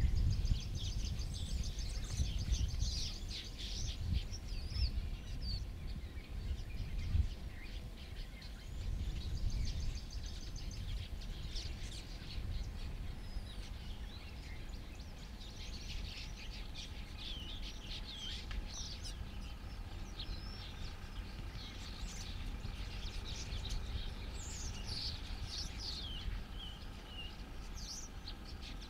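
Wild birds chirping and calling in short, high notes throughout, over a low rumble that is strongest in the first ten seconds or so and then fades.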